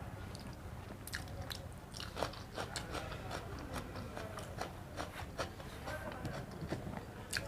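A person chewing a mouthful of rice and egg curry, with irregular wet mouth clicks and smacks.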